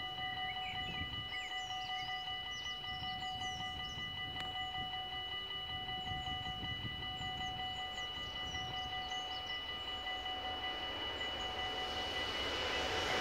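Container freight train behind an electric locomotive approaching, its rumble growing over the last second or two. Birds chirp throughout, and a steady high ringing tone sounds under them.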